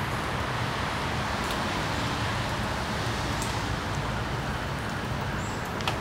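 Steady outdoor background noise: an even hiss over a low hum, with a few faint clicks and a slightly louder one near the end.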